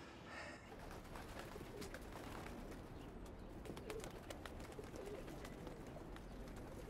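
Domestic pigeons in a rooftop coop cooing softly, with scattered faint clicks over a low steady background rumble.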